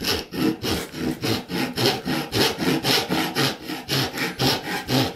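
Brass-backed dovetail saw cutting a narrow kerf down the end of an oak drawer-pull tenon, in quick, even back-and-forth strokes of about four or five a second.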